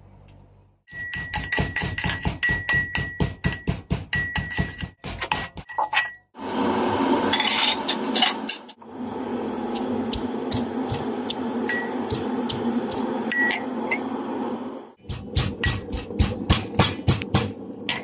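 Electric mixer grinder grinding dry rice and almonds in its steel jar: hard grains rattle rapidly against the steel, then the motor runs steadily for several seconds as the grains are ground to a coarse powder, with more rapid rattling near the end.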